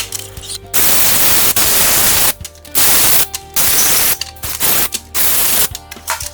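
Loud hissing noise in four bursts of about half a second to a second and a half each, starting and stopping sharply, with background music in the gaps.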